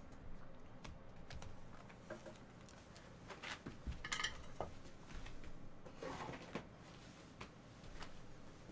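Trading cards being handled and sorted at a table: faint scattered clicks and taps, with a few brief rustling swishes of cards sliding.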